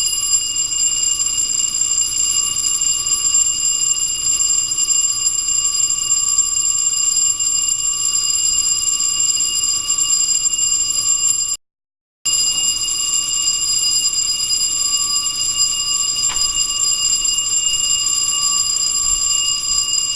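Building fire alarm bell ringing continuously, a steady ringing sounded by a pulled fire alarm with no fire. It cuts out briefly about twelve seconds in.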